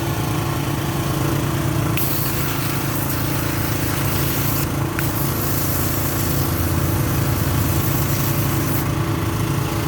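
Pressure washer's 6.5 HP petrol engine running steadily at working speed, driving its 200-bar pump, with the hiss of the high-pressure water jet over it.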